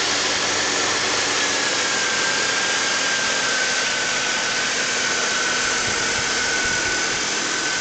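1999 Pontiac Bonneville's 3.8-litre V6 idling roughly, with a thin steady whine over the engine noise that sinks slightly in pitch. The rough idle is the random cylinder misfire logged as code P0300.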